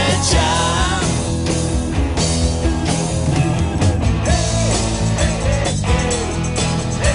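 Rock song playing: a full band with drums, bass and electric guitar, and a lead melody line that bends up and down in pitch.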